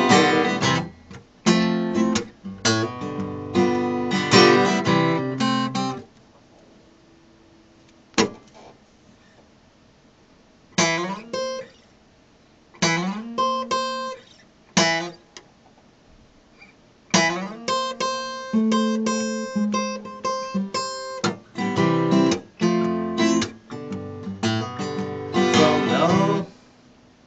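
Steel-string acoustic guitar playing an instrumental break in a blues song, with strummed and picked chords. The playing drops out for about four seconds partway through, comes back as a few separate chords, then runs on steadily and stops near the end.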